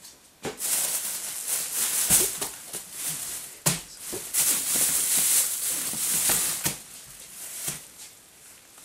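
Black plastic garbage bags rustling and crinkling as they are handled and rummaged through, with a few knocks mixed in; the rustling dies down about seven seconds in.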